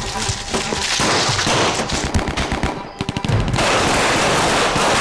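Rapid, sustained gunfire, shots following one another too fast to separate, with a brief dip about three seconds in before it picks up again.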